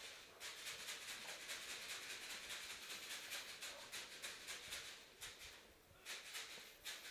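Faint, rapid clicking and rattling, with a short lull about five and a half seconds in.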